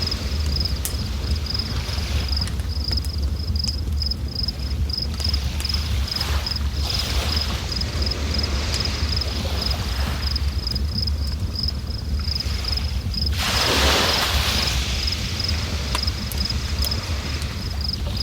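River water rushing in uneven surges, with a bigger surge about two-thirds of the way through, over a low wind rumble on the microphone. An insect chirps at an even, high-pitched pulse throughout.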